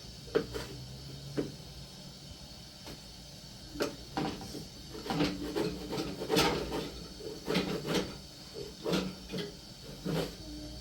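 Scattered knocks and clatter of small objects being handled, busiest in the second half, over a steady faint hiss.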